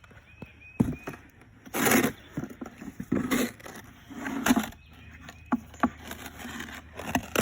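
Several scrapes and knocks of a hand tool working wet sand-mix concrete patch on a slab, the longest and loudest scrape about two seconds in.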